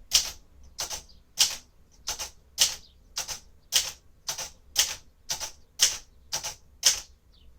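1957 Royal Aristocrat manual typewriter typing the number keys one at a time: about thirteen sharp key strikes at a slow, even pace, a little under two a second.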